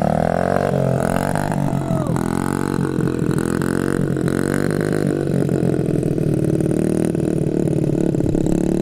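Honda CRF50 dirt bike's small single-cylinder four-stroke engine running at light, low throttle, its pitch wavering up and down.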